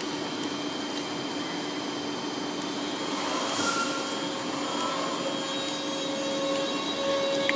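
DB class 425 electric multiple unit starting to pull away from the platform. Its electrical equipment gives a steady hum with a low tone, and from about five seconds in higher steady tones come in and it grows louder as the traction equipment takes up power.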